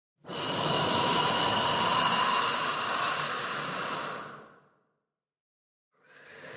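Sound-effect hiss of an alien xenomorph creature: a long, breathy hiss that fades out after about four seconds. A second hiss swells in near the end.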